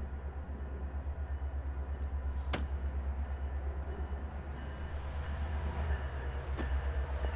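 Approaching diesel freight locomotives of CP's GP20C-ECO type, a low engine rumble growing louder as they come closer. Two sharp clicks sound, about 2.5 seconds and 6.5 seconds in.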